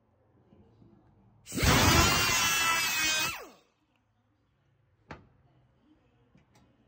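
Cutoff tool with a small abrasive wheel running for about two seconds, cutting a slot into the head of a stripped Phillips screw so a flathead screwdriver can turn it, then spinning down with a falling whine. A single sharp click about five seconds in.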